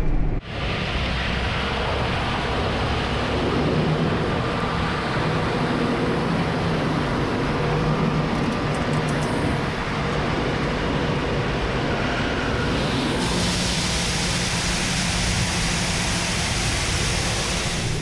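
Farm tractor engine running steadily as it pulls a grain cart across a harvested cornfield, heard from outside with wind noise over it. The hiss grows brighter about thirteen seconds in.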